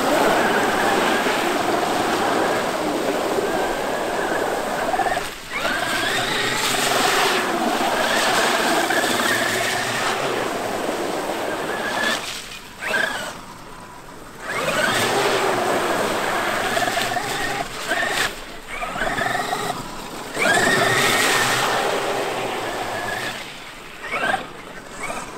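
Traxxas X-Maxx brushless electric RC monster truck driving, its motor and drivetrain whining and rising and falling in pitch with the throttle, with short breaks where it lets off, at about 5 s and for a couple of seconds around 12 to 14 s.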